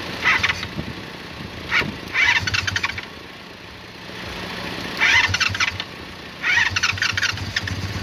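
Motorcycle engine being cranked in about four short bursts, each with a harsh crackle, the starter worked by hand past a failed starter solenoid, the engine turning over between bursts without running steadily.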